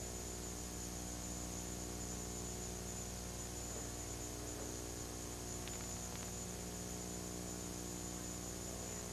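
Steady electrical hum with a stack of overtones and a hiss, unchanging throughout, and two faint ticks about six seconds in.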